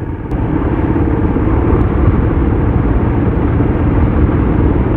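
Steady rumble of wind and road noise, with the engine under it, picked up by a camera on a moving motorcycle.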